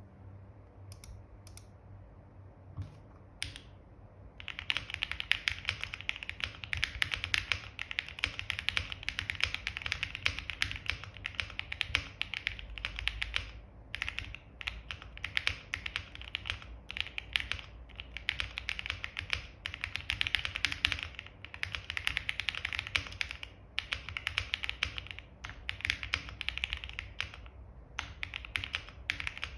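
Noir Z1 mechanical keyboard with a polycarbonate plate, lubed KTT Strawberry linear switches and full foam, being typed on: a few single keystrokes, then fast continuous typing from about four seconds in, with a few brief pauses.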